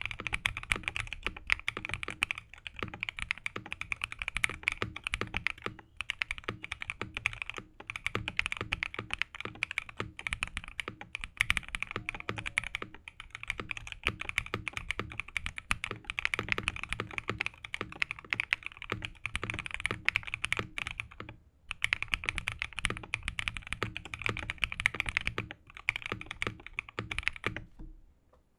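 Mechanical keyboard fitted with Prevail Epsilon linear switches, unlubed and on progressive heavy springs, being typed on fast and continuously. Brief pauses come twice, and the typing stops shortly before the end.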